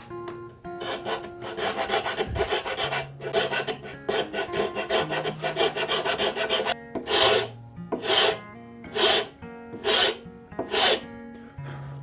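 Round file rasping across the end grain of a zebrawood knob held in a vise: quick short strokes for about six seconds, then five slower, separate strokes roughly a second apart.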